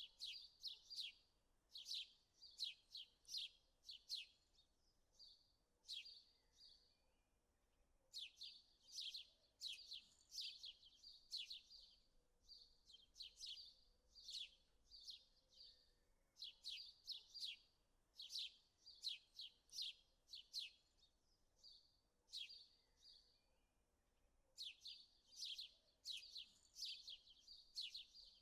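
Small birds chirping: short, sharp, high chirps repeated several times a second in bouts of a few seconds, with brief pauses between bouts.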